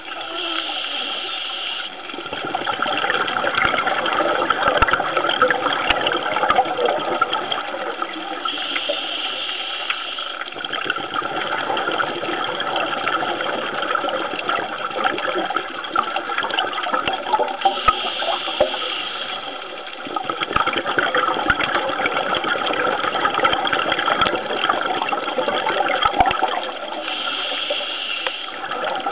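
Underwater bubbling and gurgling water noise around a submerged camera. A short hiss comes back about every nine seconds, each time with a brief lull in the bubbling.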